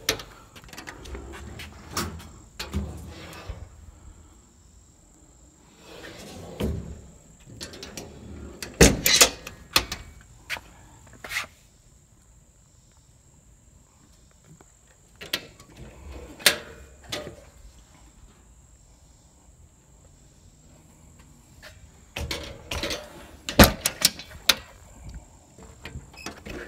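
Metal compartment doors on a service truck's utility bed being handled: scattered clunks and latch clicks in several clusters as doors are opened and shut. A steady high insect chirring runs underneath.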